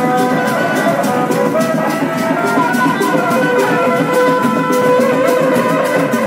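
Sundanese reak ensemble music: dogdog drums and percussion keep a steady beat with a sharp high stroke about four times a second, under a held melody line.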